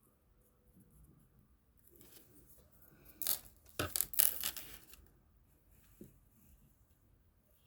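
Quick scratchy strokes of colouring on paper, a cluster of rubbing strokes about three seconds in that lasts under two seconds.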